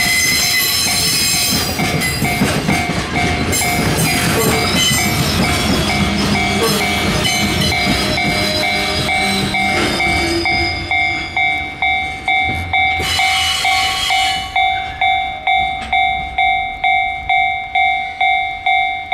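Container freight wagons rolling past with wheel rumble and clatter, under a Japanese level-crossing warning bell ringing in a steady repeating two-tone beat. About ten seconds in, the wagon noise fades away and the crossing bell goes on alone at about two strikes a second.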